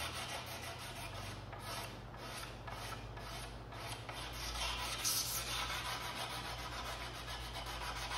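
Single-edge razor blade scraped back and forth over a varnished wooden board, a rasping stroke after stroke, shaving dried varnish drips off the surface.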